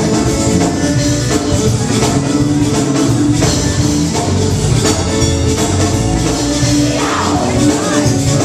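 Live zydeco band playing: accordion, electric guitar and drums, with a rubboard keeping a steady scraped rhythm.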